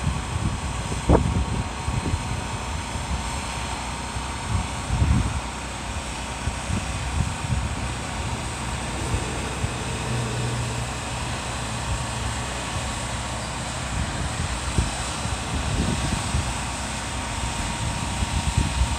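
Wind gusting on the microphone, low irregular rumbles over a steady distant drone, with a low hum standing out for a couple of seconds about ten seconds in.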